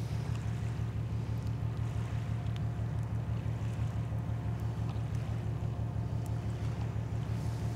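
Low, steady throb of a large bulk carrier's engines heard across open water, an even hum with a fast regular pulse and faint higher machine tones above it.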